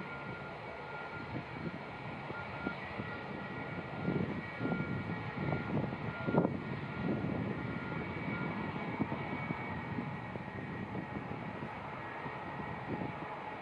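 Airbus A320's IAE V2500 jet engines running at low taxi power, heard at a distance: a steady high whine over a low, uneven rumble. A single short knock about six seconds in.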